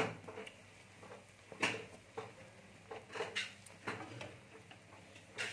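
A slotted metal spoon clinking and scraping against a steel kadai in irregular knocks, several times, while a naan puri is turned in hot oil.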